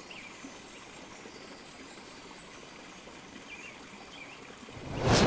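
Steady rushing and splashing water, with a few faint chirps above it. Near the end a loud whoosh swells up and peaks.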